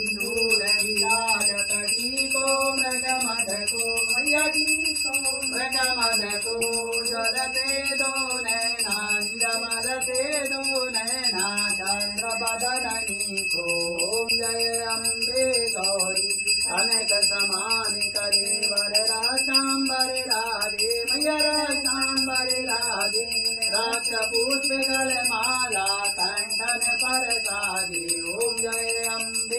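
A Hindu devotional aarti song sung to a melody, with a bell ringing continuously.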